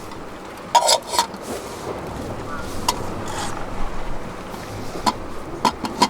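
Irregular sharp knocks and clicks, about six of them, over a steady background hiss.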